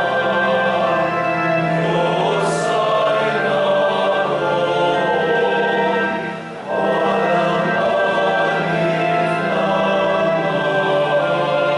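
Choir singing the offertory hymn of a Mass, in sustained phrases with a brief pause between phrases about six and a half seconds in.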